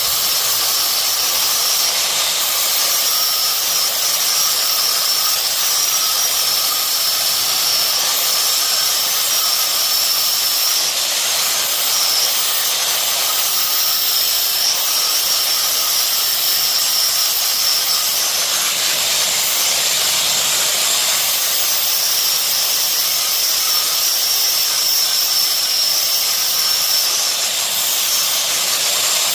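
Plasma cutter cutting through the car's steel frame, giving a steady, unbroken hiss.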